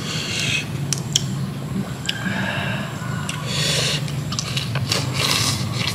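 Close eating sounds: a person biting into and chewing a fresh lettuce wrap of grilled squid, in four crisp, crunchy bursts with a few sharp clicks, over a steady low hum.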